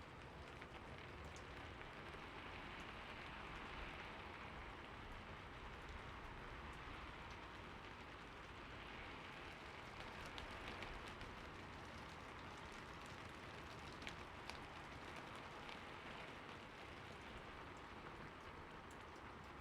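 Steady heavy rain falling, an even hiss with scattered single drops ticking through it.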